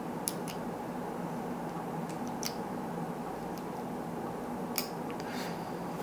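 Bolt mechanism of a copper Big Idea Design Slim Bolt Action Pen being worked back and forth: short sharp metal clicks, in about three pairs roughly two seconds apart, over a faint steady hum.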